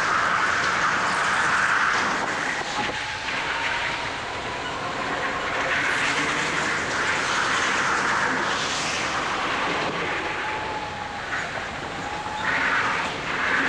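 Go-kart running flat out on an indoor track, heard from its onboard camera: a continuous rush of motor and tyre noise that swells and dips a few times as the kart goes from straights into corners.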